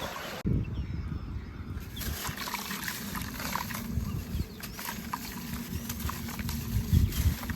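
Small chunks of white sand-and-cement crumbling in water, with trickling and scattered small ticks.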